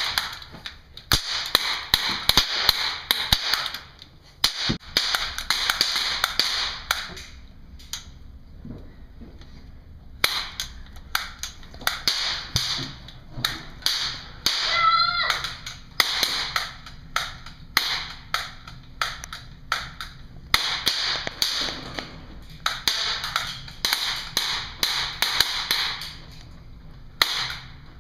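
Rapid clicking and tapping in bursts of a few seconds, with quieter gaps between them and a short wavering squeak about halfway through.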